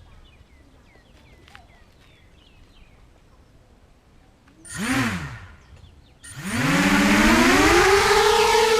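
250-size FPV racing quadcopter's brushless motors and propellers: a short throttle blip that rises and falls in pitch just past the middle, then the motors spool up with a rising whine that levels off into a steady, loud high whine. Faint bird chirps before the motors start.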